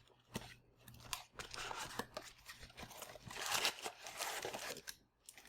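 Trading-card packaging being torn open and crinkled by hand: uneven crackling and tearing, loudest a little past halfway.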